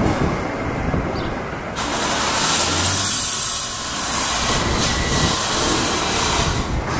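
Street traffic noise: a loud, steady rush, with a brighter hiss that comes in suddenly about two seconds in and drops away near the end.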